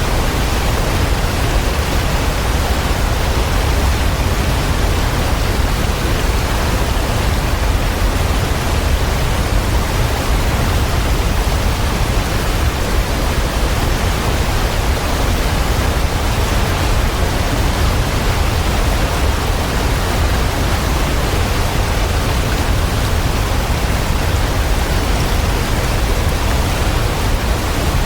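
Waterfall: water pouring and splashing in a steady, unbroken rush, with a heavy low rumble.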